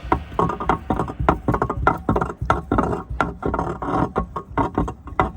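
Kinder Surprise eggs crackling and crunching: a rapid, irregular run of sharp clicks, several a second.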